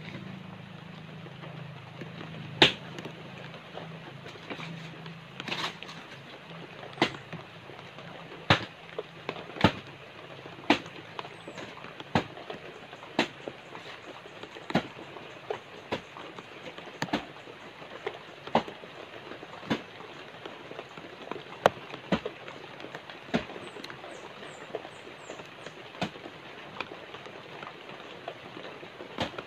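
A banana trunk being chopped with a blade: sharp, loud strikes at a steady pace of roughly one a second, starting a couple of seconds in. A low hum fades out over the first few seconds.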